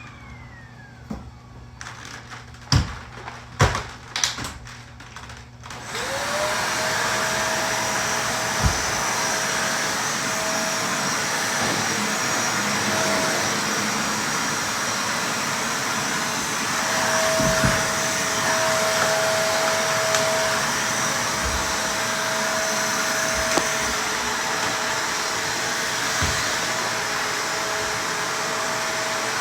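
A few knocks, then a vacuum cleaner switches on about six seconds in. Its motor whine rises and settles to a steady pitch and runs on with a few thumps.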